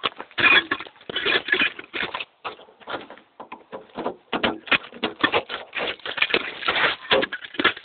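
Footsteps on gravelly pavement: quick, irregular scuffing steps, with no engine running.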